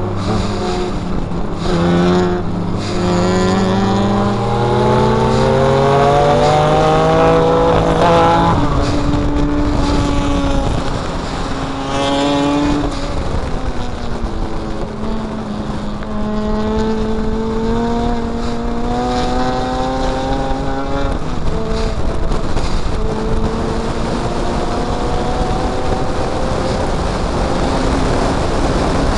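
Mazda MX-5's four-cylinder engine under hard acceleration in a race, its pitch climbing through the revs and dropping sharply at each of several upshifts, over steady wind and road noise.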